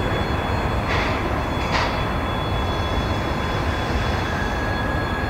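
LV-class 2-10-2 steam locomotive running at low speed, with two sharp exhaust chuffs about a second and two seconds in, over a steady low rumble of the engine and running gear.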